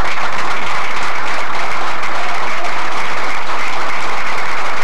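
Crowd applauding steadily: dense, sustained clapping from a room full of people.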